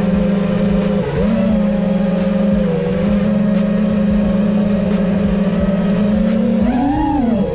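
5-inch FPV quadcopter's brushless motors and propellers whining at a steady pitch while it cruises, heard from its onboard camera. The pitch dips and recovers about a second in, and near the end it swells up and falls back as the throttle comes up and off.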